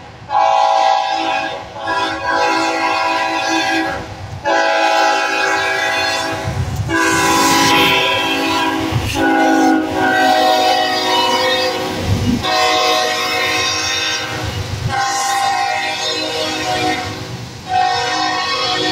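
Canadian Pacific diesel locomotive's air horn sounding a long run of blasts with short breaks, a chord of several tones, signalling for a grade crossing. The low rumble of the passing train runs underneath.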